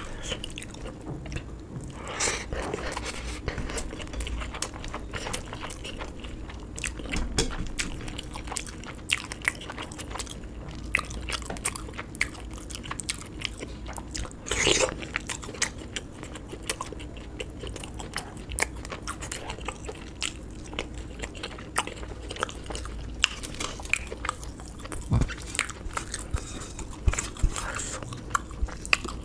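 A person chewing and biting food close to the microphone, with many small sharp mouth clicks and one louder burst about halfway through.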